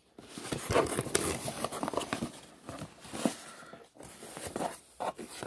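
Cardboard toy box being handled and opened: uneven rustling and scraping with a few sharp clicks as the tape holding its flaps is worked loose.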